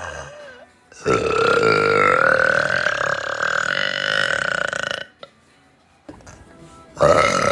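A woman's long, drawn-out burp lasting about four seconds on a steady pitch. A second loud burp starts near the end.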